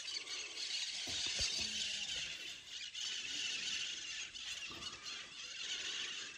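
A flock of birds flying overhead, calling together in a dense, continuous chorus of high squeals.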